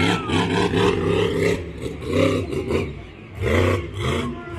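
Monster truck engine revving hard in repeated bursts of throttle, the loudest in the first second and a half and shorter blips after about two, three and a half and four seconds.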